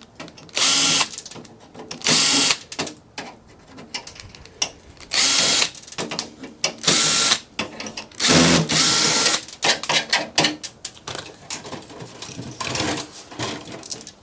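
Cordless drill/driver backing out screws from a server chassis in about five short runs of a steady whine, with clicks and knocks of metal parts being handled between the runs.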